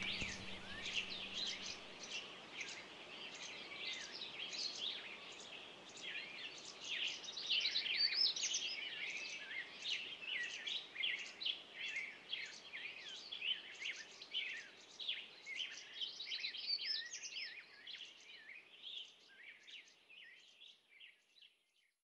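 Dense birdsong: many small birds chirping and trilling over a faint background hiss, fading out over the last few seconds.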